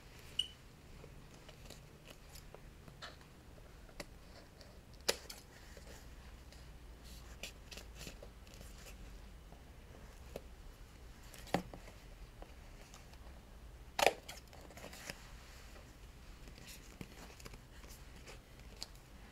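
Scissors snipping now and then while paper and craft materials are handled: a handful of short, sharp snips and clicks spaced several seconds apart, the sharpest about two thirds of the way through, over a faint steady room hum.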